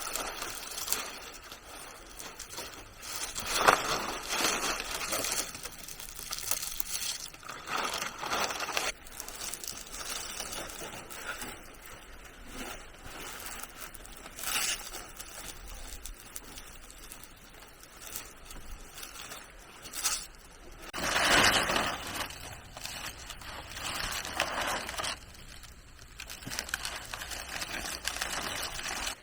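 Irregular scraping and rustling handling noises in uneven bursts, with a louder stretch about 21 seconds in.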